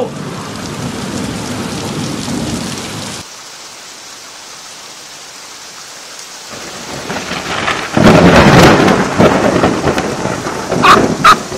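Steady rain hiss during a thunderstorm, then a thunderclap that builds from about two-thirds of the way in into a loud, long rumble, with sharp cracks in it.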